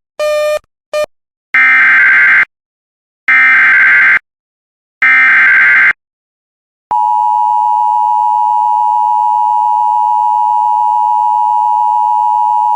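Emergency Alert System broadcast: two short beeps, then the three warbling data bursts of the digital SAME header, each just under a second long. About seven seconds in, the loud steady EAS attention tone starts.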